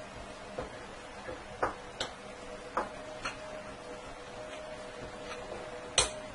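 Spoon clicking against a small glass bowl while tapioca-starch slime is stirred: about six separate clinks, the loudest near the end, over a faint steady hum.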